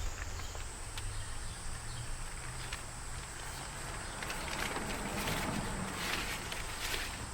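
A steady, high-pitched insect trill, with a low rumble underneath and short rustling scuffs in the second half.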